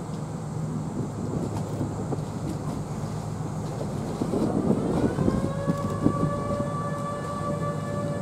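A ship's whistle starts sounding about five seconds in: it rises briefly in pitch, then holds one steady, sustained tone that is still going at the end. Before it there is a low steady rumble.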